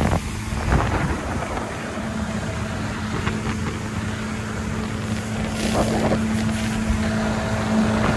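Yamaha SX190 jet boat running at speed: a steady engine and jet-drive drone under wind buffeting the microphone and water rushing past the hull, growing a little louder in the last few seconds.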